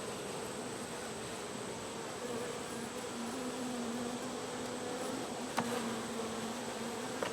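Honeybees buzzing steadily around an open hive during an inspection, with one sharp click a little past the middle.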